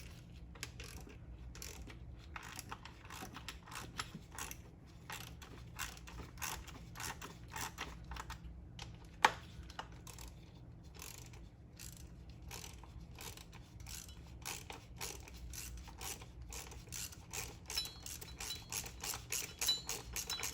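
Hand ratchet wrench clicking in short runs as bolts holding a bracket by the fuel rail are loosened, with a faster even run of clicks near the end. One sharp, loud click about nine seconds in.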